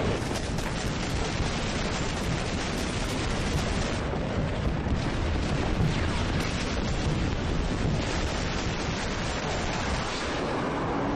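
Dramatized air-attack sound effects: a steady, dense roar of low jet noise and explosion rumble, without clear separate blasts.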